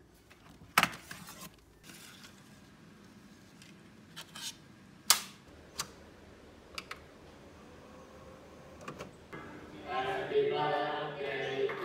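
Sharp plastic clicks and snaps as a DVD case is handled and a disc is loaded into a DVD player, the two loudest about one and five seconds in. About ten seconds in, a group of voices comes in.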